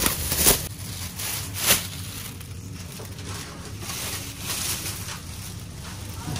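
Thin plastic produce bag crinkling and rustling as it is handled and filled, with two sharp crackles in the first two seconds.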